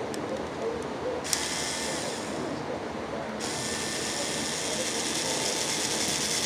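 Small cordless electric screwdriver whirring as it turns a screw in the underside of a toy car: a short run of about a second, a brief stop, then a longer run of several seconds. A few light clicks just at the start.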